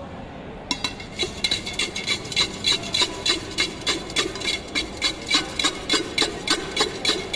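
A steel spoon striking the inside of a steel tin again and again, about three clanks a second, each with a short metallic ring, as the jhalmuri (puffed rice mix) is stirred and tossed. The clanking starts about a second in.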